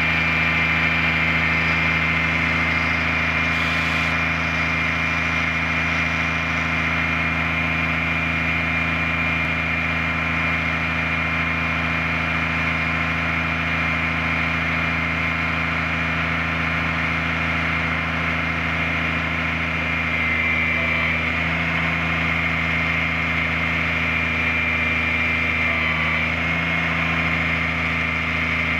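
Diesel engine of a 1997 Ford 9500 boom truck, a Caterpillar, idling steadily, with a steady high whine over the engine note.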